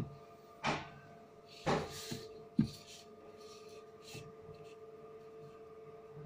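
Pencil scratching on paper in a few quick strokes, then fainter lighter strokes, with a sharp knock of the pencil or ruler on the table about two and a half seconds in. A steady hum runs underneath.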